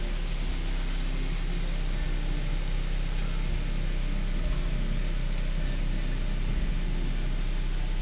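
Steady low mechanical hum with a few faint held low tones underneath an even background hiss.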